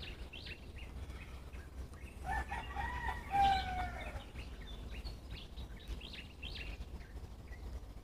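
A rooster crows once, about two seconds in; the call lasts about two seconds and ends on a falling note. Small birds chirp throughout.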